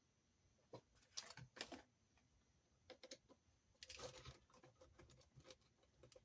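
Faint scattered clicks and taps of small RC car parts and screws being handled on a workbench, with a brief rustle about four seconds in.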